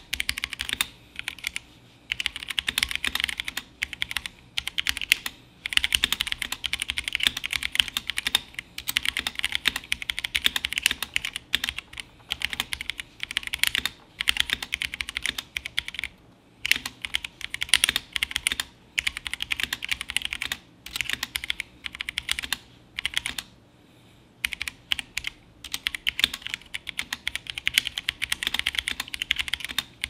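Typing test on a compact mechanical keyboard with pudding keycaps: a rapid clatter of keystrokes in runs of a few seconds, with short pauses between them.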